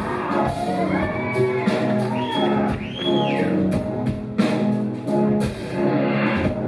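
Live band playing an instrumental passage of a rock song: a steady groove of drums and bass with sustained notes, and a few arching tones that glide up and back down about one to three seconds in.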